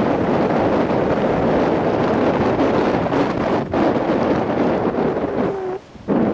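Airflow buffeting an action camera's microphone as a paraglider flies, a loud, rough rush with a brief lull near the end.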